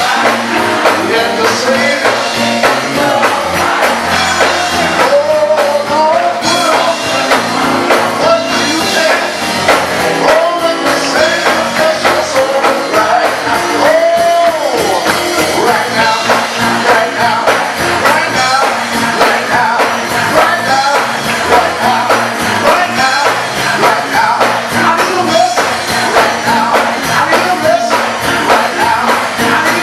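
Live gospel music: a choir and lead singers with a band, a tambourine shaking along to a steady beat.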